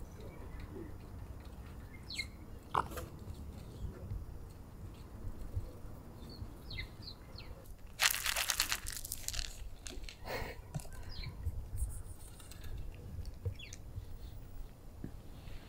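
Cats crunching dry kibble, with scattered small crunches. About halfway through, kibble rattles out of a hard plastic tub onto pavement, the loudest sound, for about a second and a half, then the crunching of eating goes on.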